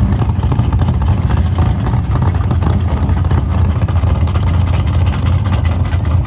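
A loud car engine running steadily.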